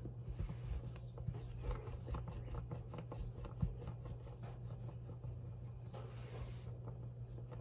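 Oven-bake clay being rolled into a snake by hand on a stone countertop: faint rubbing with many light taps and clicks, and a brief soft brushing about six seconds in, over a steady low hum.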